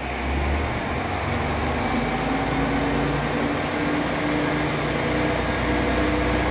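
KiHa 47 diesel railcar's engine throttling up as the train pulls away from the platform: a steady low hum, with a tone that rises gently in pitch from about two seconds in.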